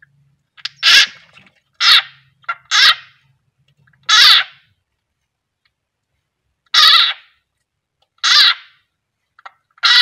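A frog screaming in distress while seized in the jaws of a keeled rat snake (king koros). About seven loud, high-pitched cries come irregularly, each under half a second long, with a longer pause around the middle.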